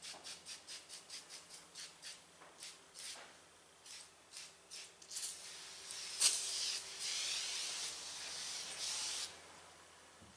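Aerosol glass and chrome cleaner sprayed onto a windshield: a quick run of short spurts and rubbing sounds in the first few seconds, then one long spray hiss from about six to nine seconds in.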